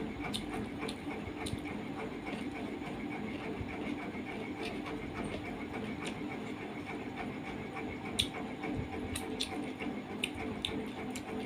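Eating sounds from a hand-fed meal of rice and curry: scattered small clicks and smacks of chewing and of fingers working food on a steel plate, about one every second, the loudest just after eight seconds in. A steady background hum runs underneath.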